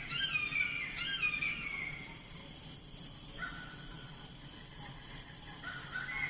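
Insects chirping in a steady pulsing trill, with a run of short, falling squeaky calls in the first two seconds and again near the end.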